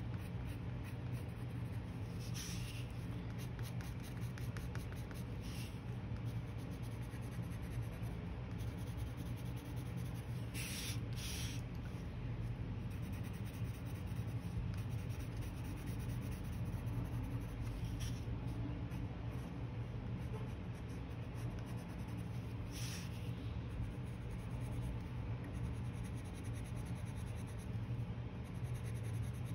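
Coloured pencil scratching across watercolour-painted paper in quick, continuous back-and-forth shading strokes, with a few louder, sharper strokes here and there. A steady low hum sits underneath.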